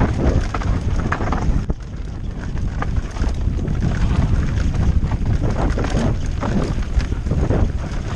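Wind buffeting the microphone during a fast mountain-bike enduro descent, with the bike rattling and knocking over rough trail throughout.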